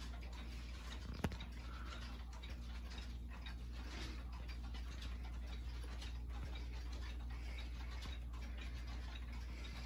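Several mechanical pendulum wall clocks ticking, their ticks overlapping out of step, over a low steady hum. One sharp click stands out about a second in.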